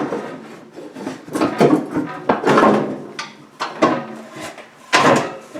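Plastic refrigerator shelf and interior parts being handled and pulled loose, with several scrapes and knocks spread through.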